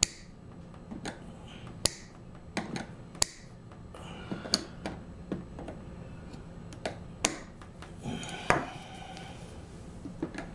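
Irregular small metallic clicks and taps of a metal hand tool gripping and prying at the small nails that hold an accordion's body together. Some nails are stubborn. The sharpest click, with a short ring, comes about eight seconds in.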